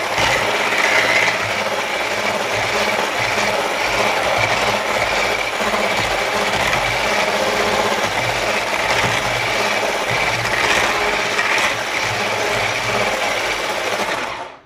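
Electric hand mixer running steadily, its beaters whisking cake batter in a plastic bowl, then switched off suddenly near the end.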